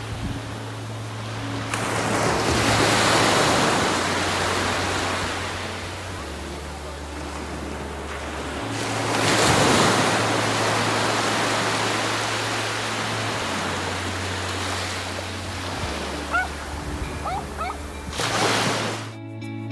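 Small waves breaking and washing up a sandy shore. The surf swells loudest a couple of seconds in, again around the middle, and once more near the end.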